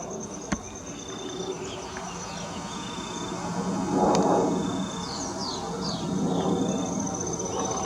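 Outdoor ambience of birds and insects: a steady high pulsing trill, short high whistled notes and a few quick falling chirps. Under them is a low background rumble that swells about four seconds in.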